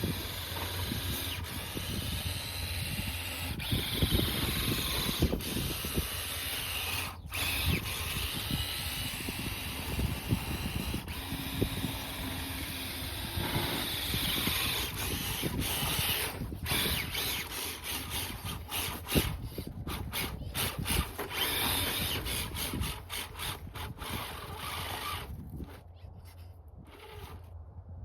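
RC crawler's brushless electric motor and gear drivetrain whining, rising and falling with the throttle as it drives through snow. It gets quieter for the last couple of seconds.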